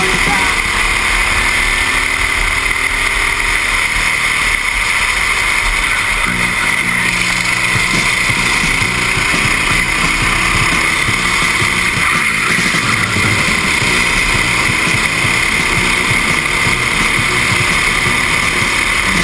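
Go-kart engine running at racing speed, heard from a camera mounted on the kart, with heavy wind noise on the microphone; the engine note climbs in the first few seconds.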